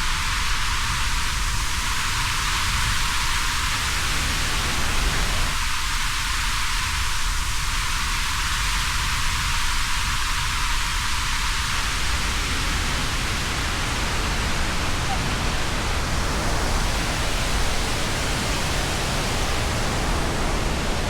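Waterfall rushing: a loud, steady, even wash of falling water with no breaks or distinct events.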